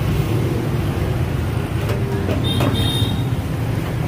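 Steady low rumble of street traffic, with a couple of sharp clicks and a brief high-pitched squeal a little past halfway.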